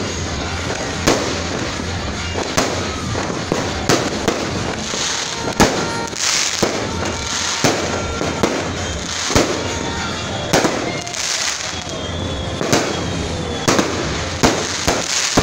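Aerial fireworks bursting overhead: sharp bangs about once a second, with several bursts of crackling between them.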